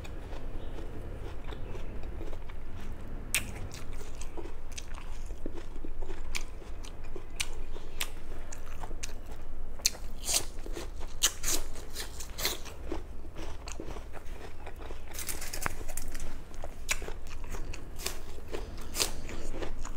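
Close-miked biting and chewing of crisp Fuji apple slices: many sharp, irregular crunches as the apple is bitten and chewed.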